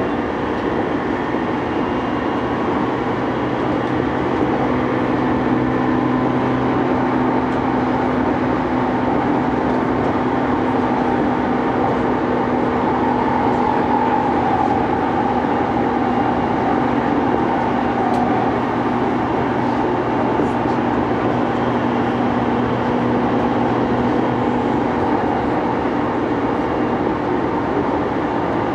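Interior running sound of a JR East E233-2000 series electric train, heard from inside a motor car on the move: steady rolling noise with a steady hum from the traction motors. A tone near the top of the hum wavers a little about halfway through.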